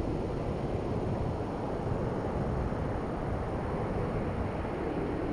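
Steady wind buffeting the microphone over the rush of ocean surf.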